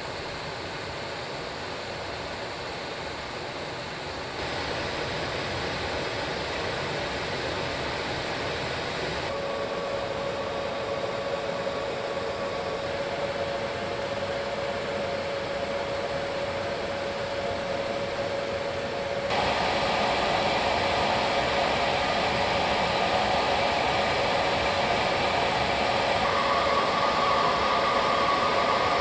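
Steady roar of jet engines and rushing air heard from inside a B-52H Stratofortress cabin. A steady whine comes in about nine seconds in, and the noise steps abruptly louder about four and nineteen seconds in.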